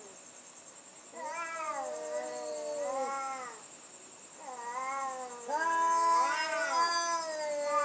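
Two cats yowling at each other in a standoff: long, drawn-out caterwauls that waver up and down in pitch, three spells of calling, the last and loudest with the two voices overlapping.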